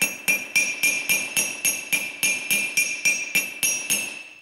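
Rapid hammer taps, about four a second, driving a new steel taper-roller bearing race into a Land Rover swivel housing; each blow gives a bright metallic ring. The tapping stops shortly before the end as the race goes home into its seat.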